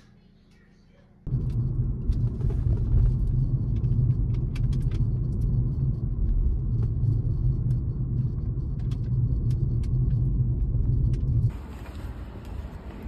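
Steady low rumble of a car driving, heard from inside the cabin, starting suddenly about a second in. Near the end it cuts to a quieter, airier outdoor sound.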